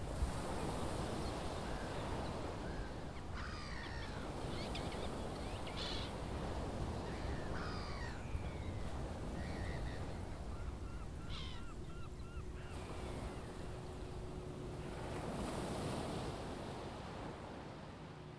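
Gulls calling over a steady wash of wind and surf: scattered calls through the first part, then a quick run of short repeated notes about two-thirds of the way in.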